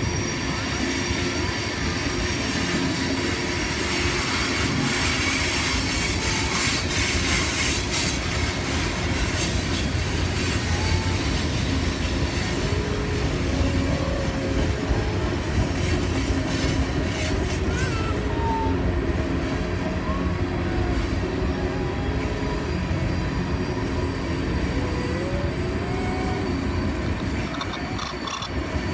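Freight train of tank cars and boxcars rolling past: a steady rumble of steel wheels on the rails, with thin wavering wheel squeal over it, growing a little louder near the end.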